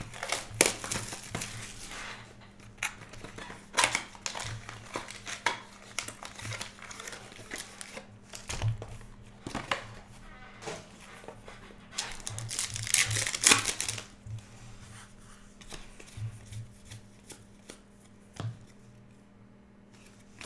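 Hands opening a trading-card hobby box and handling foil-wrapped card packs: scattered clicks and scrapes of cardboard and wrappers. About 12 to 14 seconds in, there is a louder stretch of foil crinkling and tearing as a pack is ripped open.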